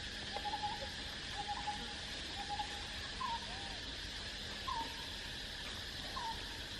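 Short tonal animal calls repeat about once a second, some flat and some flicking upward in pitch, over a steady buzz of insects.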